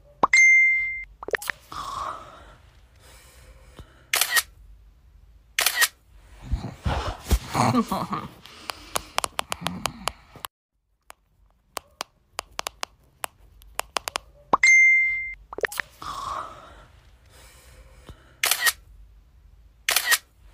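Phone camera sounds: a short electronic beep, then rustling and several sharp shutter clicks. The same beep-and-click sequence starts again partway through.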